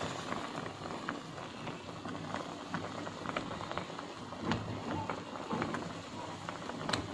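Ramen broth bubbling at a steady boil in a Korean ramyeon pot: a constant soft crackle of popping bubbles, with a couple of sharper clicks.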